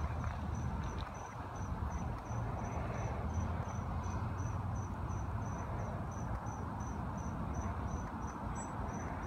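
Insect chirping in an even, high-pitched pulse, about three chirps a second, over a steady low rumble.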